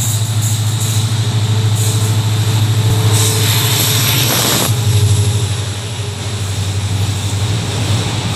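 Diesel locomotive hauling a freight train passing close below: a steady, pulsing engine rumble, with a louder rush of noise about three to five seconds in as the locomotive goes underneath, then the wagons rolling past.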